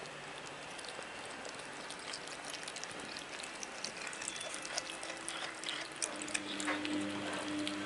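Scottish Fold cats chewing and licking pieces of salmon off a plate: a run of small, wet, irregular smacks and clicks. A steady low hum joins about six seconds in.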